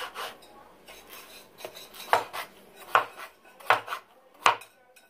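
Chef's knife dicing raw potato on a plastic cutting board: several separate sharp knocks of the blade striking the board, coming a little under a second apart in the second half.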